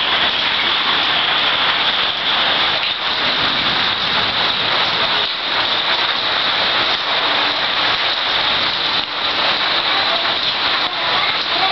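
Thunderstorm rain falling steadily, an even hiss.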